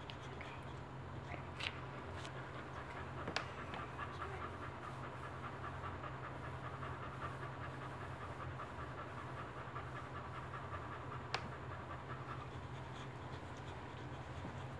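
A boxer bitch in labour panting steadily while whelping, with a steady low hum underneath and two sharp clicks, about three and eleven seconds in.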